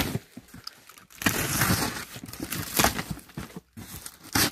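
Utility knife slitting the packing tape on a cardboard carton and the cardboard flaps being pulled open: a few scraping, tearing strokes.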